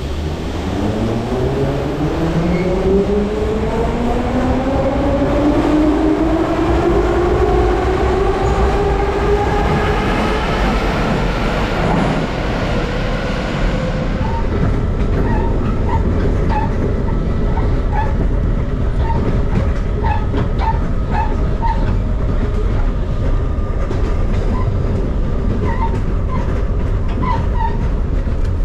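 Metrowagonmash metro train pulling away, its traction motors whining and rising steadily in pitch as it accelerates, then levelling off. After a cut, the running sound of a metro car heard from inside, with regular clicks from the wheels over rail joints.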